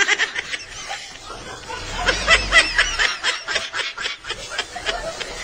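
Children laughing and squealing in quick high-pitched bursts, loudest about two seconds in.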